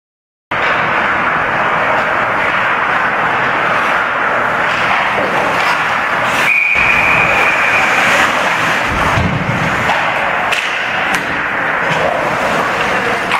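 Ice hockey game noise from beside the net: a steady wash of rink sound with a few scattered knocks of sticks and puck, cutting in about half a second in. About six and a half seconds in a sharp knock is followed by a high steady whistle lasting about a second and a half.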